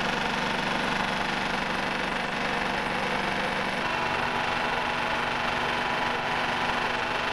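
Belt-driven coconut-husk defibering machine for coir making, running steadily with a dense, even mechanical hum from its motor, pulleys and rollers. Its note drops slightly about four seconds in, as coconut husk is being fed between the spiked rollers.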